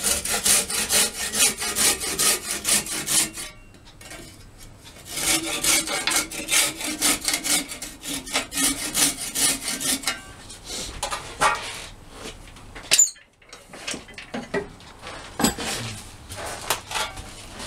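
Crosscut handsaw sawing into an oak blank in quick, even strokes, in two bouts with a short pause between. The sawing then gives way to a few scattered scrapes and knocks, with one short rising squeak.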